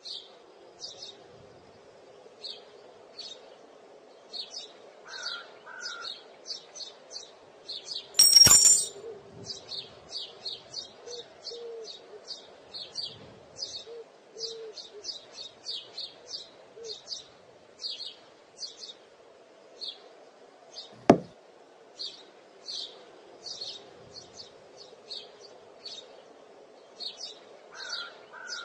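Birdsong ambience: many short, high chirps from small birds repeating throughout over a steady low background. About eight seconds in there is a loud metallic clack that rings briefly, steel boules struck together, and about 21 seconds in a single sharp knock.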